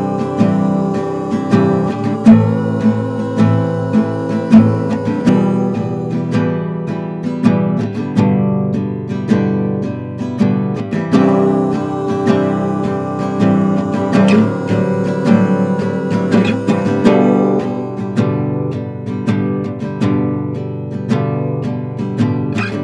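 Instrumental break of an original song: acoustic guitar strumming and picking chords in a steady rhythm.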